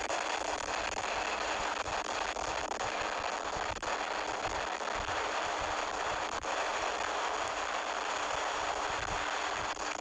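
Wind rushing and buffeting over an action camera's built-in microphone while riding along a road, a steady crackling rush with a faint hum underneath. The camera has no external mic, so the wind swamps the recording.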